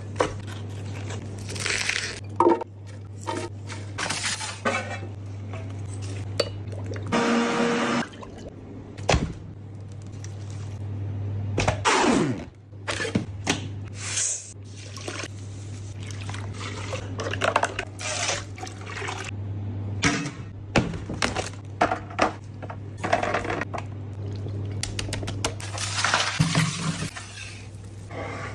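Kitchen sounds of liquid pouring and splashing, with frequent clinks and knocks, over a steady low hum.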